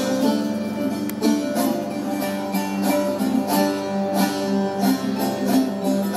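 Instrumental folk music on a plucked string instrument: quick picked notes over a steady low drone note.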